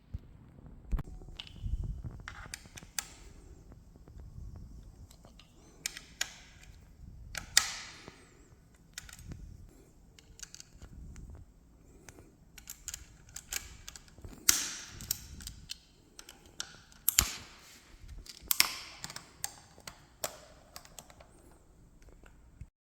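Irregular clicks, knocks and clatter of office chair parts and tools being handled during disassembly, with several sharper knocks scattered throughout.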